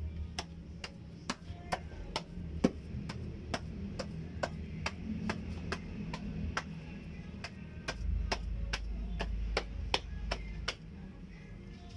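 Steady, even ticking, about two sharp clicks a second, over a low hum.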